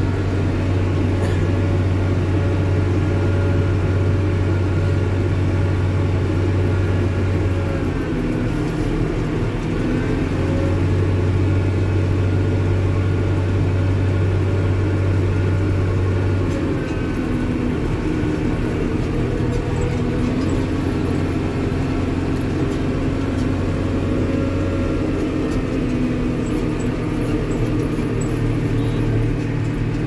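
Bobcat skid-steer loader engine running steadily with a low hum, its note changing a little about a quarter of the way in and again just past halfway.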